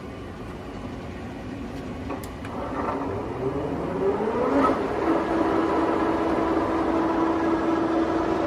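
Timemaster gap bed engine lathe starting up: after a click, the drive's whine rises in pitch for about two seconds as the spindle comes up to speed, then settles into a steady running hum.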